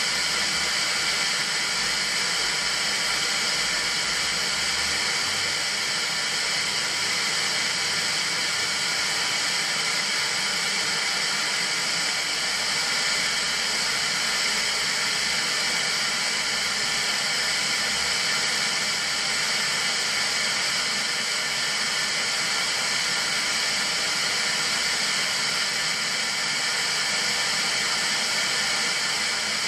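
Steady hiss of analogue TV static from a 1977 Kriesler 660/55 colour television's speakers. The set is tuned to a channel whose analogue transmitter has gone off air, so it receives no signal.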